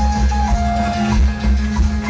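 Loud Latin dance music with a heavy, booming bass and shaken maracas, played over a sonidero sound system.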